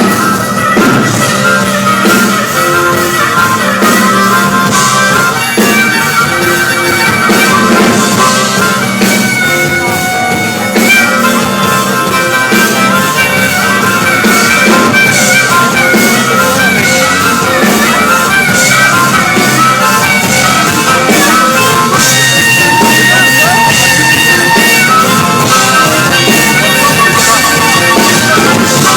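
A band playing rock music live, a high sustained lead line over a steady beat.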